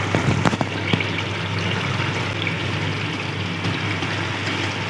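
Pot of prawns and potatoes simmering steadily in liquid on a gas flame, with a few light knocks in the first second as chopped coriander and dill are tipped in from a plate.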